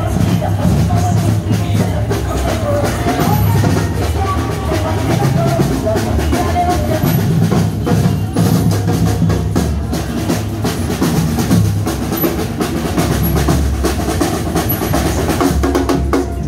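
Parade band music dominated by drums: a bass drum and snare drums beating steadily, with a melody line over them.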